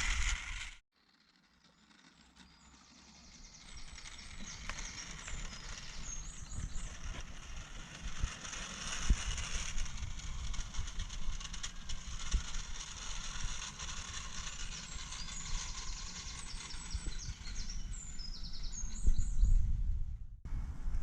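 Outdoor ambience with wind rumbling on the microphone, many small ticks and short high chirps. It cuts out briefly just after the start and again near the end.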